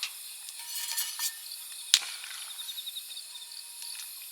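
Insects chirping in the background, including a fast, even run of high pulses for about a second near the middle. A single sharp click sounds about two seconds in.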